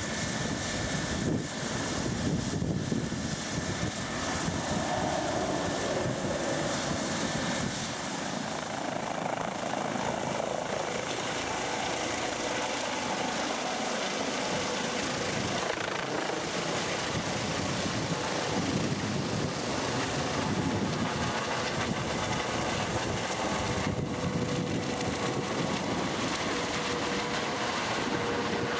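Rescue helicopter lifting off and climbing away overhead, its rotor and engines running at a steady loud level with a fast, even rotor beat and a thin steady whine.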